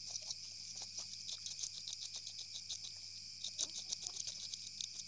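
Night chorus of crickets, a steady high-pitched chirping in rapid pulses, with a few faint taps and rustles.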